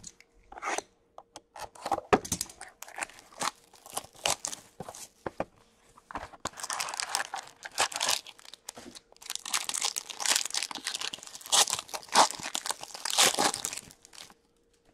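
Hands tearing open the foil wrapper of an Upper Deck Stature hockey card pack, with crinkling plastic: irregular crackling and rustling, busiest in the second half.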